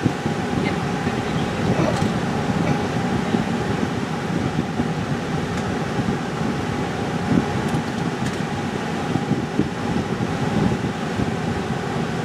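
Steady engine and road noise heard inside a vehicle's cab as it drives through a narrow rock tunnel, with a few faint clicks.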